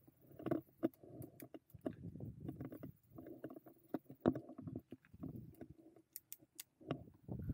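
E-mountain bike rattling and knocking on a downhill trail run, an uneven rumble broken by many sharp clicks and knocks.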